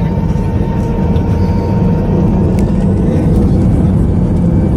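Cabin noise inside an Airbus A320-family airliner on its takeoff run: a steady, loud low rumble from the jet engines and the wheels on the runway, with a faint high whine that fades out about halfway through.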